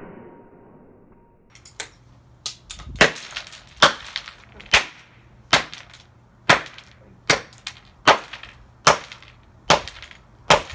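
Hammer blows on the broken remains of a Dreamsky DS206 alarm clock radio: a steady series of about eleven sharp strikes, roughly one every 0.8 seconds, beginning a couple of seconds in.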